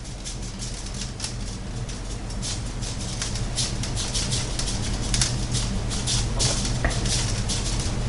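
Burger seasoning shaken from a shaker onto raw ground-bison patties in a metal pan: a quick, irregular patter of shaker rattles and falling granules, getting busier after a couple of seconds. A steady low hum runs underneath.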